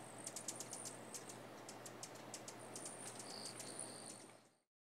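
Faint outdoor field-recording ambience: a steady hiss with quick, very high-pitched ticks and chips, joined by a thin high buzz about three seconds in. It fades out just before the end.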